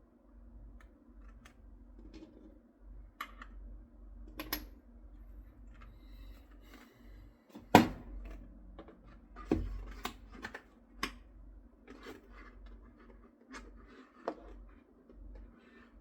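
Irregular clicks, taps and knocks of small hard parts being handled, over a low steady hum; the sharpest knock comes about eight seconds in, with another strong one near ten seconds.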